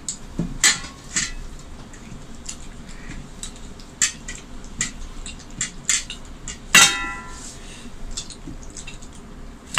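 A stainless-steel plate is handled and scraped clean with the fingers: scattered clicks and taps on the metal. About seven seconds in, a sharp clank leaves the plate ringing briefly.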